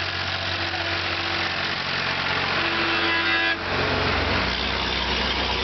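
Engines and road noise of passing traffic: a tractor, then a bus going by close, its deeper engine sound swelling suddenly just past halfway.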